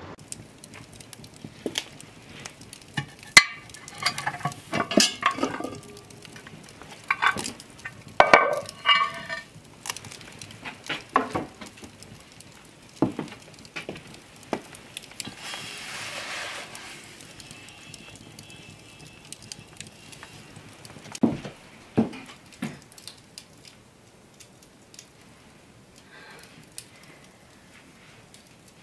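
Scattered clanks and clinks of a cast-iron Dutch oven and a metal pie tin being handled, with a wood fire crackling in the hearth.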